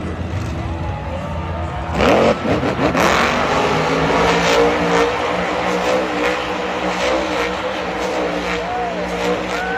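Monster truck's supercharged V8 engine revving, with a sudden loud surge about two seconds in, then running on at high revs. A stadium crowd can be heard behind it.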